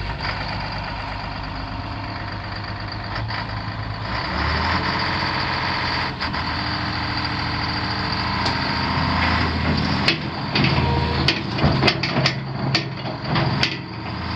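Komatsu PC490LC-10 excavator's diesel engine running, picking up speed and getting louder about four seconds in. A series of sharp knocks sounds over the last few seconds.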